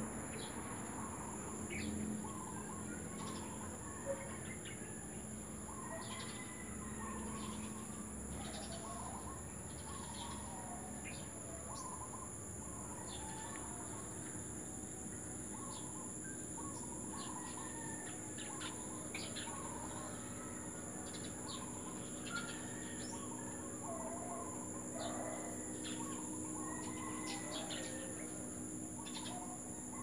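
Several birds chirping and calling, with short call phrases repeated over and over, over a steady high-pitched whine.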